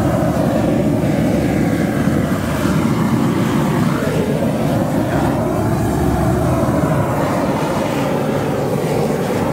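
Propane roofing torch burning steadily with a loud, low rushing flame, played against the underside of a torch-down roofing roll to melt it onto a flat roof.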